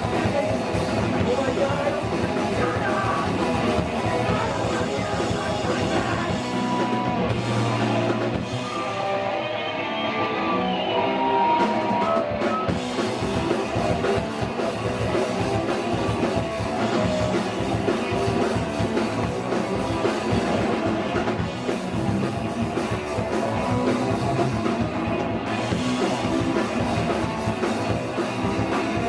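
Hardcore punk band playing live, with distorted electric guitars, bass and a drum kit. About seven seconds in, the cymbal wash drops away for a few seconds, then the full band comes back in.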